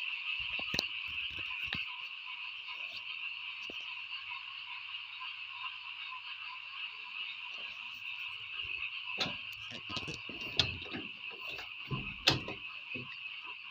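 Steady night chorus of frogs calling. Several sharp knocks close by come in the second half, the loudest two near the end.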